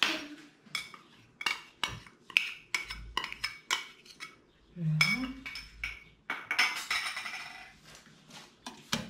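Metal spoon clinking and scraping in a small glass bowl and against a saucepan as cornstarch is spooned into milk. It is a series of sharp clinks, with a denser stretch of scraping and rattling about two-thirds of the way in.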